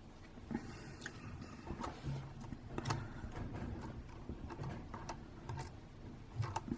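Scattered light clicks and taps from small plastic propellers, screws and a screwdriver being handled on a DJI Mavic Mini drone during propeller replacement.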